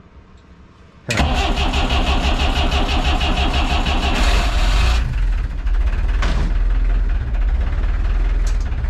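Lifeboat's inboard diesel engine starting: it turns over and catches suddenly about a second in. It runs with a loud, fast, regular beat, and after about four seconds the high-pitched part of the noise drops away and it settles into steady running. This is the first start after the owner feared frost had cracked the engine block.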